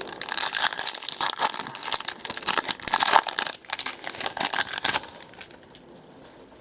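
A trading-card pack wrapper is torn open and crinkled. The dense crackling runs for about five seconds, then stops.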